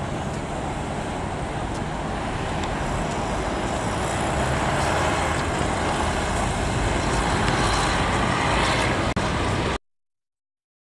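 City road traffic: buses and cars running past on a busy street as a steady rush that swells somewhat louder in the middle, then cuts off suddenly near the end.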